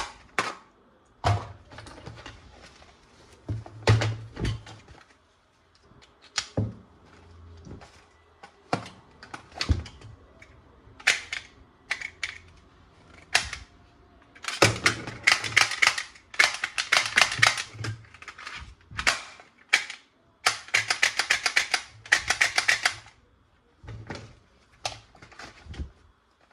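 Plastic toy guns being handled and worked: scattered sharp clicks and knocks, then two runs of rapid clicking, one about four seconds long and one about two and a half seconds long.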